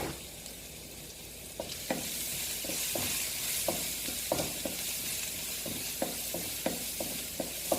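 Crushed bird's eye chillies, garlic and black pepper sizzling in hot coconut oil in a pan while being stirred, a spoon clicking against the pan every second or so. The sizzle comes up louder about two seconds in.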